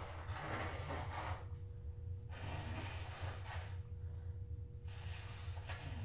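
A woman with a cold blowing her stuffed-up nose into a tissue three times, each blow a hissy rush lasting over a second, over a steady low hum.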